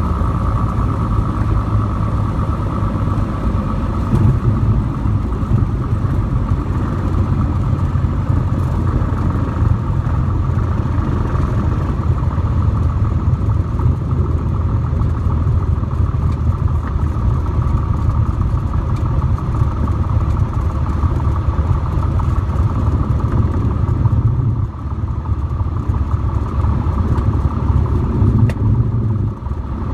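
Cessna 182T's six-cylinder piston engine and propeller running with a steady drone and a strong low rumble, dipping briefly in loudness twice in the last few seconds.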